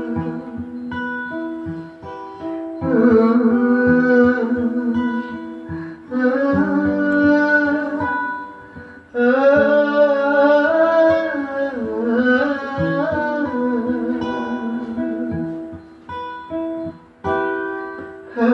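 Acoustic guitar picked in a song's instrumental interlude, with a voice carrying a long wavering melody over it in stretches.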